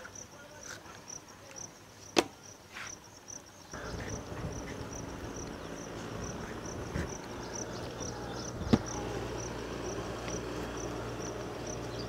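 Insects chirping in a steady high, pulsing rhythm of several pulses a second, with a couple of sharp clicks. From about four seconds in, a low steady hum and general background noise come up underneath.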